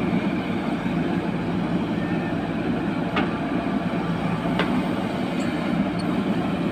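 JCB 3DX backhoe loader's diesel engine running steadily under load as the backhoe digs soil, lifts the bucket and swings it. Two sharp clicks, about three and four and a half seconds in.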